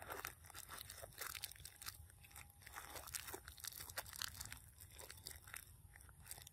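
Monkeys crunching and chewing small pieces of food: a run of quick, crisp, irregular crackles and clicks.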